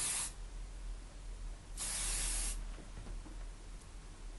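Hairspray being sprayed in short hisses: one ends just after the start, and a second lasting under a second comes about two seconds in.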